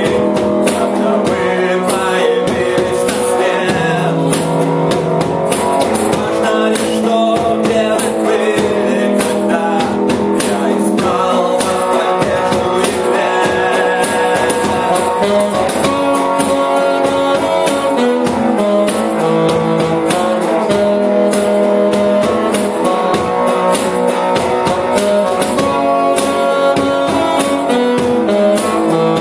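A rock song played by a band, with guitars over a steady drum-kit beat.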